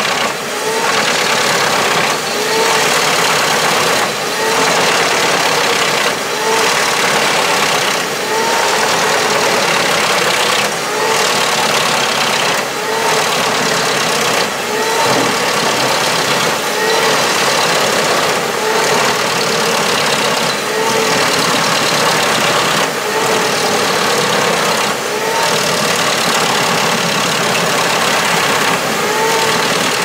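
Truck-mounted drum wood chipper running under load as its spiked feed roller draws a log in to be chipped: a loud, steady mechanical din. It dips and surges about every two seconds, each time with a short rising-and-falling whine.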